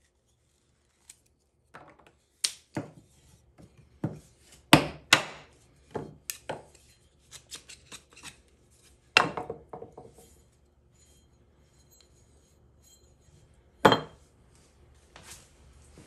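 Hand tools being handled and knocked in workshop work: a string of irregular sharp knocks and clatters, loudest about five, nine and fourteen seconds in, some with a short ring.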